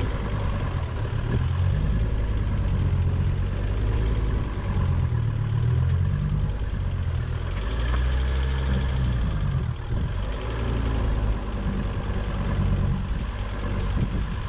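Volvo XC90 engine running as the SUV drives slowly along a muddy, rutted track, its pitch rising and falling a little as the revs change, heard from a camera mounted low on the outside of the body beside the front wheel.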